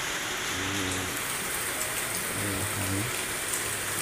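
Heavy rain pouring down, a steady dense hiss.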